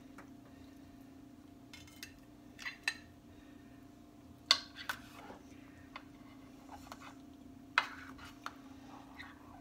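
Metal spatula and fork scraping and clinking against a ceramic casserole dish and plate as a piece of casserole is cut and lifted out, with the sharpest clinks about four and a half and eight seconds in. A steady low hum runs underneath.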